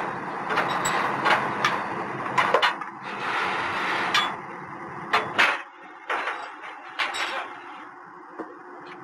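A motor vehicle engine runs steadily beneath a scatter of sharp metal clanks and knocks from work around a PCC streetcar's wheel truck. The engine noise falls away a little past halfway, leaving fainter knocks.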